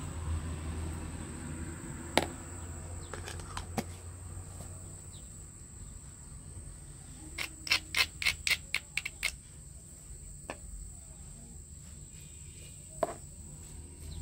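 Steady high-pitched insect chirring, with scattered sharp clicks and knocks from food and utensils handled on a wooden tray, including a quick run of about eight clicks near the middle.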